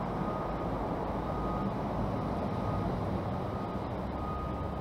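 Steady rushing rumble of wind and road noise picked up while cycling through city streets. A faint high whine comes and goes a few times.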